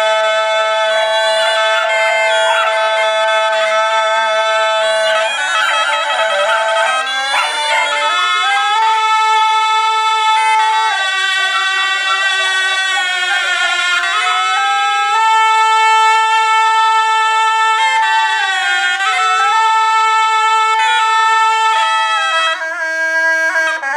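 Two pi nae, northern Thai double-reed shawms with flared brass bells, played together in long held notes with a buzzy, reedy tone, a lower and a higher line moving in steps between pitches.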